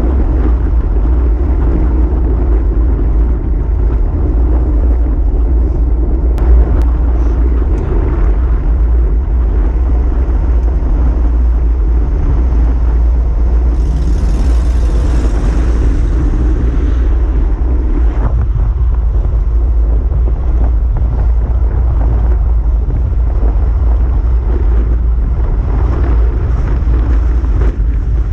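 Wind buffeting the microphone of a camera on a moving bicycle: a loud, steady low rumble with road noise underneath. About halfway through, a brief hiss swells and fades.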